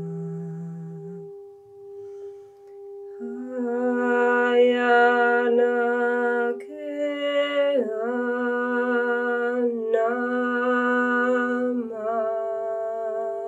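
A woman chanting in long, held notes over a steady drone tone that sounds throughout. Her voice drops out about a second in, returns about three seconds in, and shifts pitch a few times.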